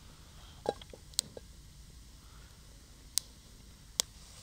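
Four sharp clicks at irregular intervals, with a few fainter ticks after the first two, over a faint steady low hum.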